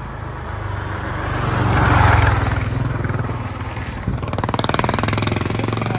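Honda Africa Twin motorcycle engine running as the bike rides up the street, getting louder to a peak about two seconds in, then running on steadily. The engine has just come back to life after its ignition coil, flooded with water, was replaced.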